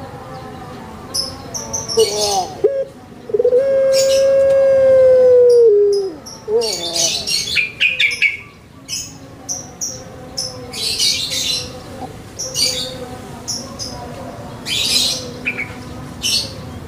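Barbary dove (puter pelung) cooing: a short falling note, then a long drawn-out steady coo of about two and a half seconds that drops at its end, then a short closing note. Small birds chirp in high, quick notes throughout.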